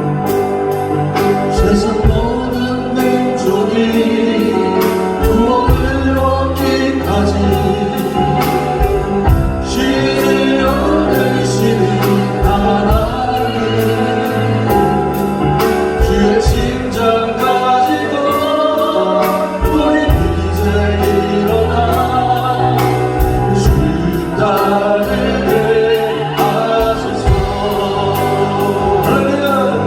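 Contemporary Christian worship song: voices singing together over a band with bass and a steady drum beat of about two strokes a second.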